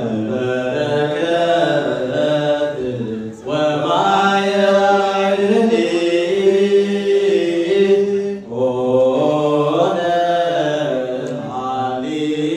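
Men's voices chanting an unaccompanied Orthodox Tewahedo Nativity hymn (mezmur) in long, drawn-out held notes, sung into a microphone. The singing breaks briefly about three and a half and eight and a half seconds in as new phrases begin.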